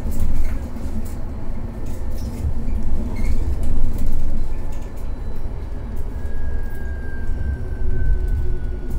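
Interior of a Mercedes-Benz eCitaro battery-electric city bus on the move: a steady low rumble of running gear and road noise, with small rattles and clicks from the fittings. About six seconds in, a faint high whine from the electric drive comes in and slowly falls in pitch.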